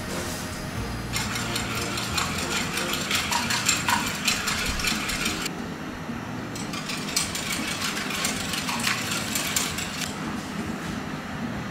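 Eggs being beaten by hand in a small ceramic bowl, the utensil clicking rapidly against its sides. The beating stops briefly a little past the middle, then starts again.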